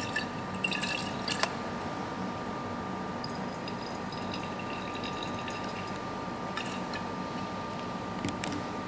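Glass conical flask handled and swirled by hand on a wooden stand base: a few light knocks and scrapes of glass on the base in the first second and a half, then faint sloshing of liquid in the flask.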